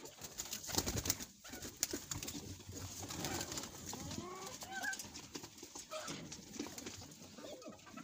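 Domestic pigeons cooing, a few low rising-and-falling calls mostly in the middle, over the rustling and light knocks of a cardboard box being handled.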